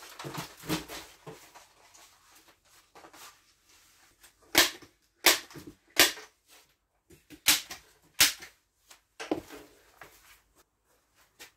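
A fastening gun firing about six single sharp shots, a second or so apart, fixing a thin board panel to wooden ceiling joists. Rustling and handling of the board comes first.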